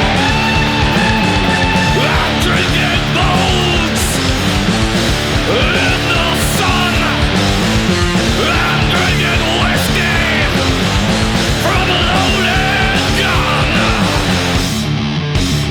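Stoner rock band recording playing at full volume: heavy distorted guitars and bass churn through a repeating riff over drums, with a higher wavering line above it. The high end drops back briefly near the end.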